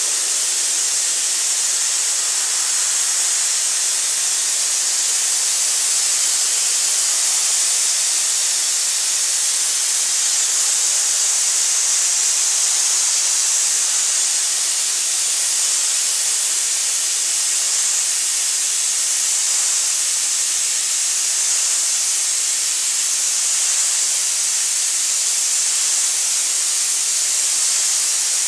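Aerogommage nozzle blasting air and fine abrasive onto a wooden cabinet door, a steady, even hiss that strips the old finish from the wood.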